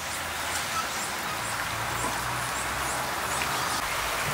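Outdoor ambience: a steady hiss with faint short high chirps repeating about twice a second over a weak low hum.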